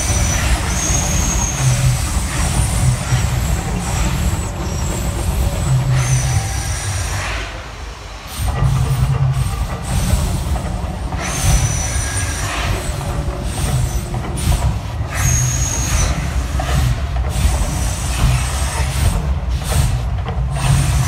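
Mirage volcano show erupting: gas fire jets flaring with surging whooshes and hisses over a loud, continuous deep rumble. The sound dips briefly about eight seconds in, then surges back.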